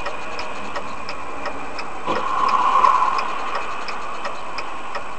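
A car's indicator relay ticking evenly, about three ticks a second, over steady road and engine noise inside the cabin. The noise swells louder for about a second, roughly two seconds in.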